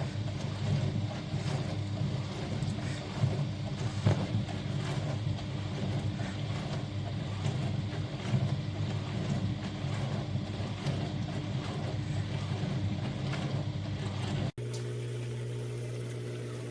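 HAVA countertop dishwasher running: a steady pump-motor hum under a rough wash of water spraying inside the tub. Near the end it changes abruptly to a smoother, steadier hum.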